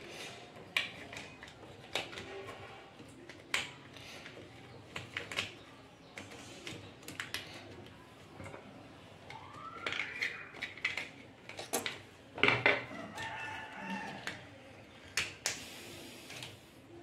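Hands handling wires and plastic connectors inside a water purifier cabinet: scattered clicks, taps and rustles, loudest about twelve seconds in. A rooster crows in the background a little past the middle, a call that rises and then holds.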